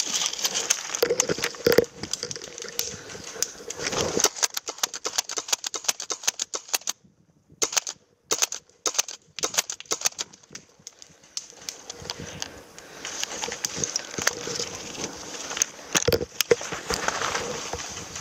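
Airsoft guns firing in full-auto strings, heard as dense runs of sharp clicks, as two sides trade fire. Dry leaves and twigs crackle on the forest floor.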